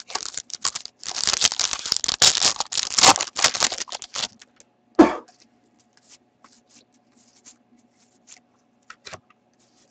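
Foil hockey card pack wrapper being slit, crinkled and torn open for about four seconds. Then comes a single thump about five seconds in, and after it only faint light ticks of the cards being handled.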